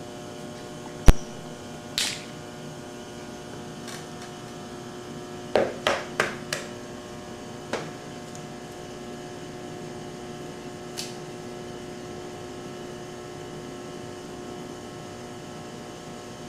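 Kitchen utensils and bowls knocking and clicking a few times over a steady electrical hum: one sharp knock about a second in, another near two seconds, a quick run of four around six seconds, then a few fainter clicks.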